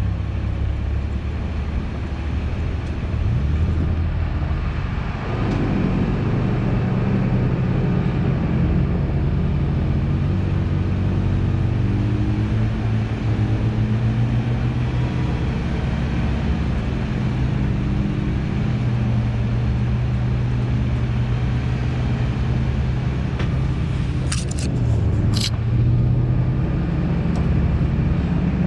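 Supercharged Toyota Tacoma pickup running steadily under way, its engine hum mixed with tyre and road noise. The engine note shifts briefly about five seconds in and again near the end, where a few sharp knocks are heard.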